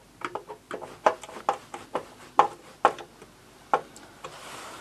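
A hand tool turning a screw into a moped's side cover: a run of short sharp clicks, roughly two a second and a little irregular, as the screw is worked in.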